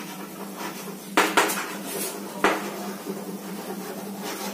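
Chalk tapping and scraping on a blackboard as words are written, with sharp taps a little over a second in and again about halfway through, over a steady low hum.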